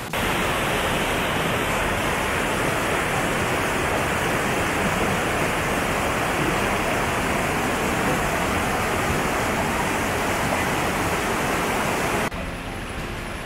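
Steady rush of running mountain water. It cuts in suddenly at the start and stops abruptly about a second before the end.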